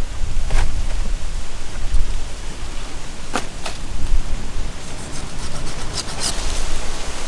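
Steady rushing hiss with low buffeting, typical of wind on the microphone, with a few short sharp clicks scattered through as a knife cuts through the stingray's flesh.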